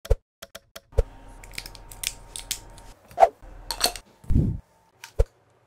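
Scattered sharp clicks and taps of a plastic battery holder and AAA batteries being handled, with a short low thud a little past the middle.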